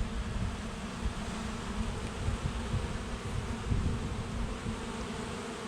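Swarm of honey bees buzzing around a hive box, a steady, continuous hum of many bees in flight.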